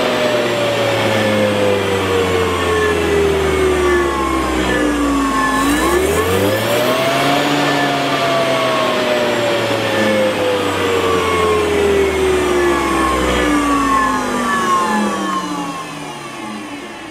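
3.5 hp brushed DC motor on a home-built 200 V controller, whirring as it spins: its pitch falls as it slows, climbs sharply as it is throttled up about six seconds in, then falls away again as it spins down, fading near the end.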